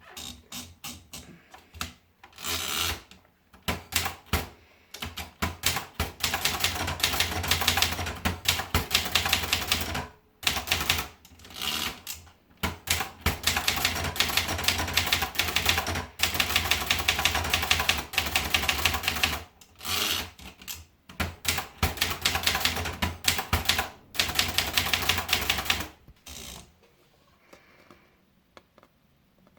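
Vendex 800 typewriter being typed on in fast runs of keystrokes broken by short pauses. The typing stops about three seconds before the end.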